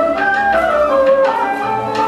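Vietnamese traditional music for water puppetry: a melody moving in steps between held notes, with light percussion strokes.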